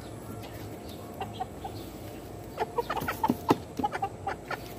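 Chickens clucking, with a quick run of short clucks in the second half.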